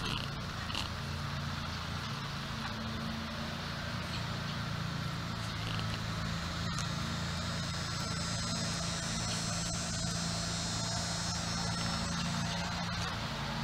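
Outdoor ambience: a steady low motor-like hum of several held pitches, with a high insect buzz that swells in about halfway through and fades near the end.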